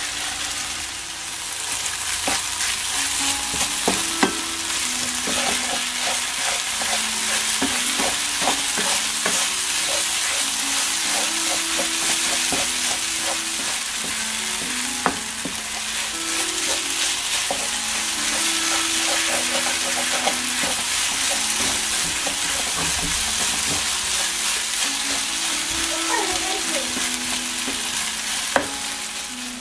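Food sizzling steadily in a hot frying pan while it is stirred, with a utensil clicking and scraping against the pan many times. Soft background music plays underneath.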